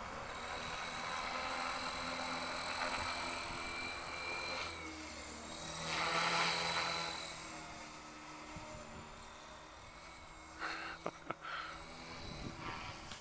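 Battery-powered 3DX500 RC helicopter in flight: a steady high motor and gear whine over the whoosh of the rotor blades, growing loudest about halfway through as it comes close, then fading. A few sharp clicks come near the end.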